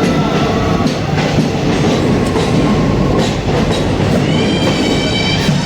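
A passenger train running on the rails, heard from on board: a steady rumble with clicks of wheels over the rail joints. About four seconds in, a high wheel squeal rises and holds for about a second.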